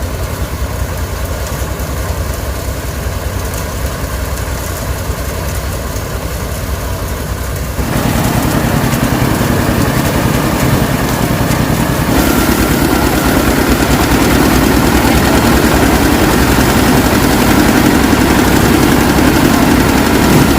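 An engine running steadily with a low rumble, getting louder about 8 seconds in and again about 12 seconds in.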